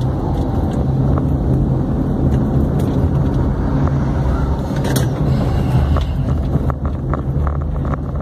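Cabin noise of a Troller driving on the highway: a steady low engine and road rumble, with a few light clicks from a rattle inside the cabin.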